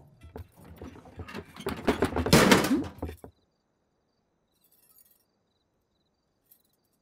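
A woman gulping a drink from a steel tumbler, the swallows loudest about two seconds in, then the sound cuts off suddenly about three seconds in, leaving near silence with a faint tick or two.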